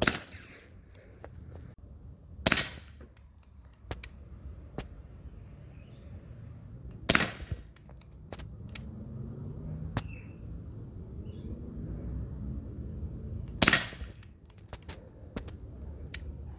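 Umarex Glock 19 CO2 BB pistol firing four single shots, irregularly spaced a few seconds apart, each a sharp crack, on a full gas charge. A few fainter ticks fall between the shots.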